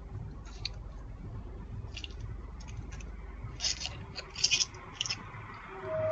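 Steady low hum of a doorbell camera's microphone with about six short, scratchy clicks over it, the loudest a little past the middle.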